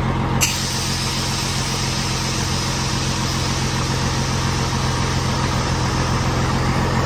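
Scania 112 HS six-cylinder diesel engine idling, with a steady hiss of compressed air that starts suddenly about half a second in: air being let out of the truck's lift-axle air suspension.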